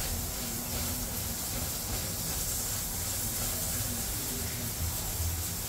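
Steady hissing sizzle of pupusas cooking on a hot griddle.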